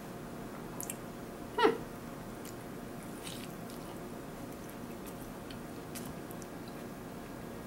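A person chewing a bite of burger, with faint wet mouth clicks. About a second and a half in there is one brief squeak that falls in pitch.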